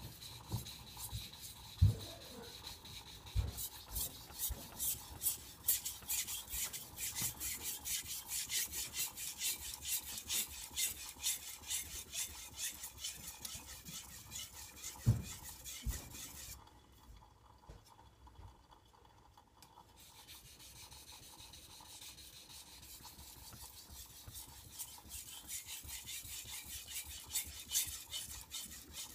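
Knife of very hard steel (about 65–66 Rockwell) being sharpened on a Shapton Pro whetstone: repeated back-and-forth scraping strokes, about two a second, with a few knocks of the blade or hands against the stone, the loudest about halfway. The strokes stop for a few seconds past the middle, then resume more softly and grow louder near the end.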